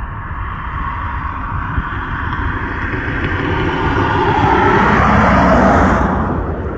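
A road vehicle passes close by: its noise builds to a peak about five seconds in, falls in pitch as it goes past, then drops away quickly. A steady low rumble runs underneath.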